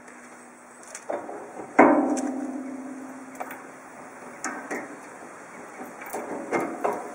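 A sharp metallic clang about two seconds in that rings on for a second or two, from the camper's stainless steel rear fittings. Then a few light metal clicks and clinks as the mud flap's hook and chain are handled.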